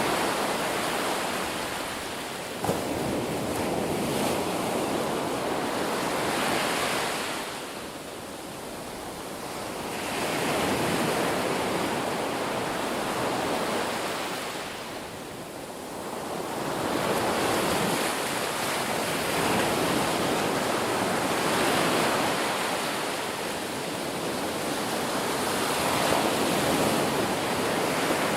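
Ocean surf washing onto a beach: waves break and rush in, then ease off, in slow surges several seconds apart.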